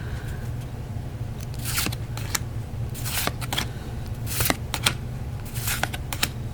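Pokémon trading cards handled by hand, a series of short, sharp swishes and snaps as cards are slid and flipped one over another, over a steady low hum.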